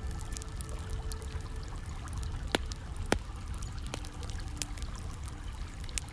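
Hot-spring water trickling and pouring steadily, with campfire crackling over it: scattered sharp pops, two louder ones about two and a half and three seconds in.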